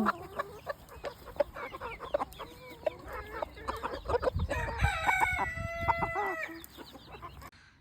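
Chickens clucking, then about five seconds in a rooster crows once, a long call held for nearly two seconds.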